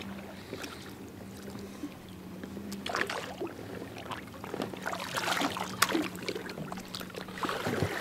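Water splashing and sloshing against the side of an inflatable dinghy in irregular bursts, louder from about three seconds in, over a faint steady hum.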